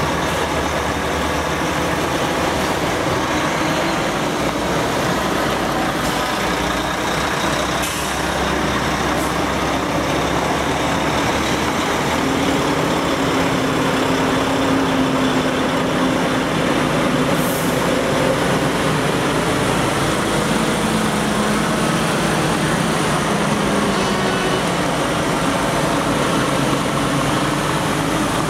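Heavy diesel lorries, tractor units and a tipper, driving slowly past one after another with their engines running steadily.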